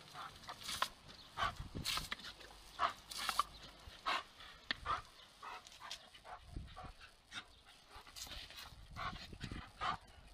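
Dogs giving short yips and barks, one or two a second, while being sprayed with water from a garden-hose nozzle.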